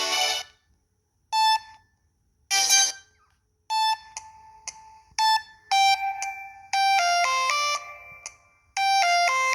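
Preloaded ringtones on a Samsung A517 phone: one tone cuts off, and after a short pause the next begins with single pitched notes about a second apart that build into a quicker melody of several notes.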